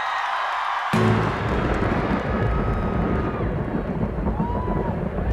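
Concert crowd noise, then about a second in the live band's next song starts suddenly and loudly, with a heavy, distorted low-end rumble and a few held keyboard-like tones on top.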